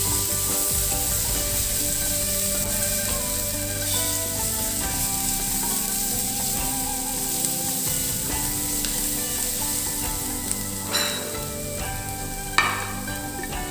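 Chopped onions and ginger-garlic paste sizzling in hot oil in a nonstick pan, stirred with a wooden spatula. Two sharper knocks near the end.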